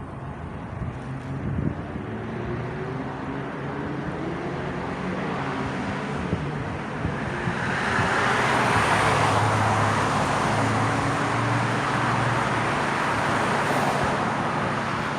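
Road traffic: a steady engine hum, with a vehicle passing whose rush of tyre and engine noise swells about halfway through, then eases.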